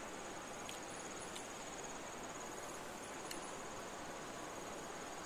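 An insect trilling: a high, steady, finely pulsed tone over a steady background hiss, with a few faint ticks.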